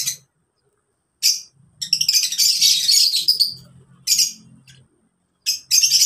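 Flock of lovebirds chattering in shrill, high-pitched chirps. After about a second of silence it comes in several short bursts with brief gaps.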